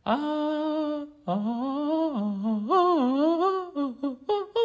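A man's vocal warm-up to open his throat: one held sung note for about a second, then a run of drawn-out vocal notes sliding up and down in pitch.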